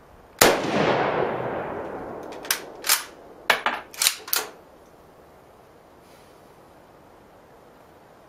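A single shot from a 1941 Mosin-Nagant bolt-action rifle in 7.62x54R, echoing for about two seconds. Then the bolt is worked with about six sharp metallic clacks, ejecting the spent case and chambering the next round.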